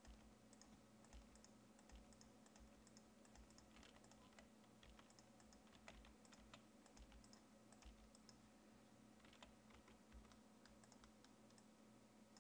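Faint, irregular computer keyboard keystrokes, the presenter tapping Blender shortcut keys, over a low steady hum.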